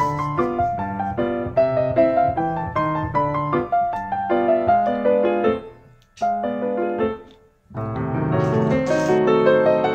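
Background piano music, a continuous run of notes that drops away briefly around six seconds in and again just before eight seconds before carrying on.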